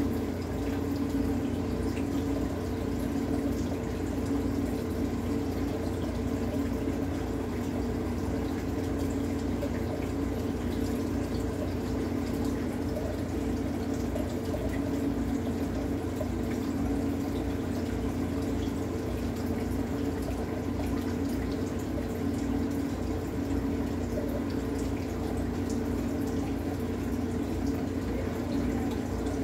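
Home aquarium's filter and air bubbler running: steady trickling and bubbling water over a constant low hum.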